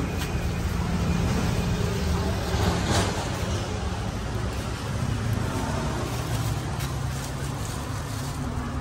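Steady low rumble of street traffic and motorbikes, with a few faint clicks.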